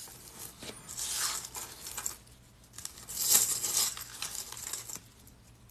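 Small metal jump rings clinking and rattling against each other as hands push and sort loose piles of them, in two spells: about a second in, then a louder one about three seconds in, dying away near the end.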